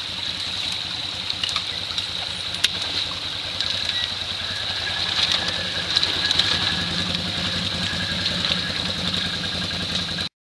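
Off-road vehicle engine running steadily at low revs, with a steady high tone over it and a few small clicks; the sound cuts off abruptly near the end.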